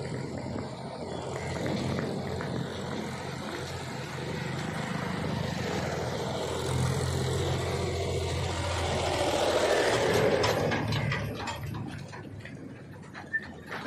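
A motor vehicle's engine and tyre noise passing by, swelling to its loudest about two-thirds of the way in and then fading away.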